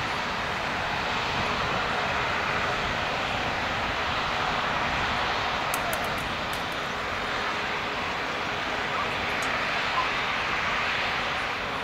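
Steady rushing jet-engine noise from an Airbus A380 moving along the runway.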